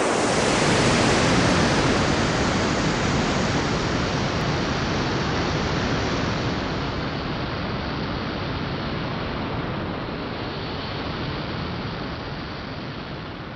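A rushing roar of noise, added as a rocket-launch sound effect: it starts suddenly, then slowly fades and grows duller as if the rocket is climbing away.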